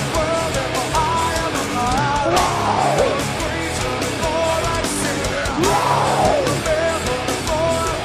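Heavy metal band playing live: distorted guitars riffing over drums, with a swooping sound that comes back about every three seconds.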